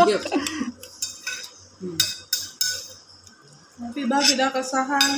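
Metal spoons clinking and scraping against a ceramic bowl and a glass plate as food is served onto rice, a handful of sharp, separate clinks.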